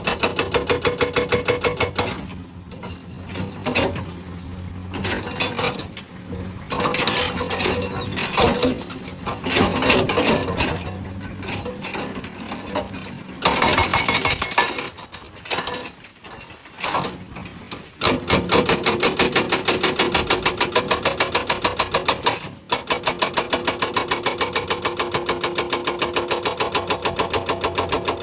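Hydraulic breaker on a Komatsu PC200 excavator hammering rock in rapid, even blows. It runs in bursts of several seconds with pauses between, the longest run near the end, while the excavator's engine runs underneath.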